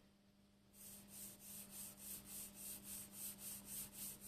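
An air bearing being lapped by hand on abrasive paper over a granite surface plate: a faint rasping hiss of quick back-and-forth strokes, about three or four a second, starting under a second in.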